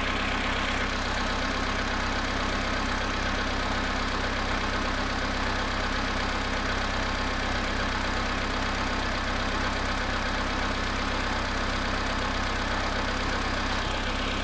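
Volkswagen Polo Sedan engine idling steadily in frost at −2 °C after standing 22 hours, with the engine knock the owner is recording.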